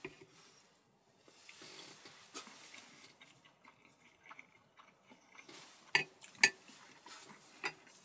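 Metal fork clinking and scraping against a plate while eating, with a few sharp clinks, the loudest two close together about six seconds in and another near the end.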